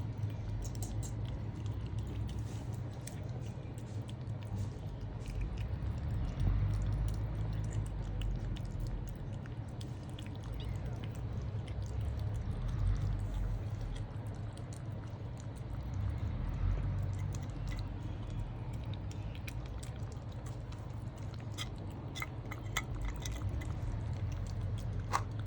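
Cats eating: a stream of small chewing and licking clicks and smacks, over a steady low hum, with a few sharper clicks near the end.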